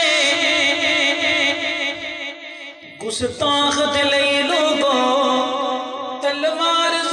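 A man chanting a nazam into a microphone, the melody drawn out in long held, wavering notes, with a short break about three seconds in.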